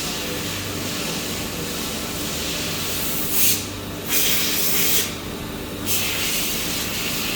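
A CNC machine running with a steady hum, broken by three bursts of spray hissing: a short one about three seconds in, then two longer ones.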